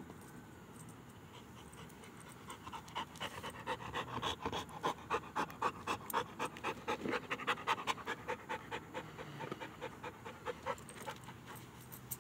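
A dog panting fast, about three or four breaths a second, getting louder about three seconds in and fading again near the end.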